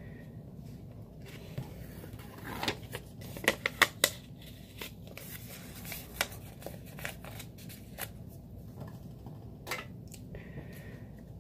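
A small yellow paper slip being torn from a notepad and folded by hand: a burst of sharp crackles and snaps from about two and a half to four seconds in, loudest near four seconds, then scattered lighter rustles and ticks.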